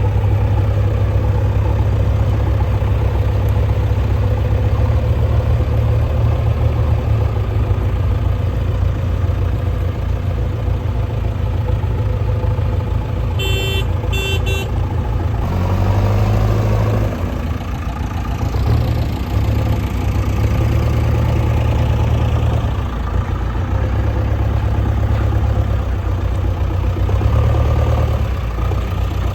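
JCB 3DX backhoe loader's diesel engine running, its note shifting up and down from about halfway through as the machine works. Two short beeps sound about halfway through.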